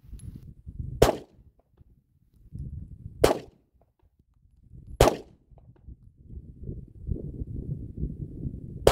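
Smith & Wesson CSX 9 mm compact pistol firing single shots at an uneven pace: three sharp reports a couple of seconds apart, then a longer pause before a fourth shot right at the end.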